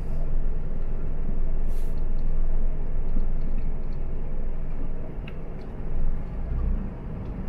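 Steady low rumble of a car driving, road and engine noise.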